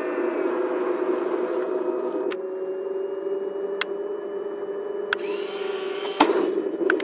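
Heng Long 1/16-scale M1A2 Abrams RC tank standing still with its turret traversing: a steady electric motor hum whose pitch shifts about two seconds in. A few sharp clicks follow, with the loudest, a sharp crack, about six seconds in.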